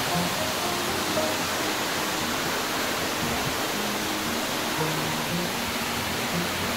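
Steady rush of a high waterfall, with faint background music underneath.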